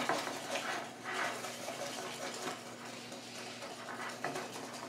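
Wire whisk beating wet banana bread batter by hand in a mixing bowl: a quick, continuous run of light clicks and scraping against the bowl.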